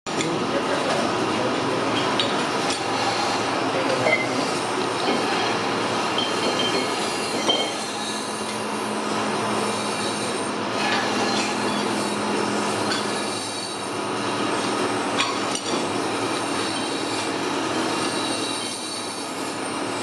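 Steady mechanical noise of metalworking machinery, with a few light metallic clinks.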